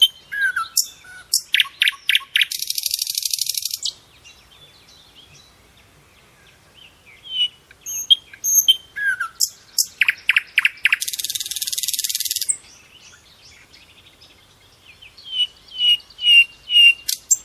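Songbirds chirping and singing: sharp high chirps and short falling whistles, then a fast buzzy trill lasting about a second and a half. The sequence repeats about every eight seconds, with a few quieter seconds between bouts.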